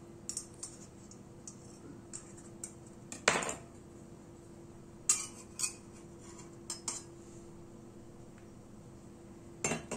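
Cake server and knife clinking and scraping against a metal baking pan and a plate as slices of cake are cut and lifted out: scattered short clicks and knocks, the loudest about three seconds in.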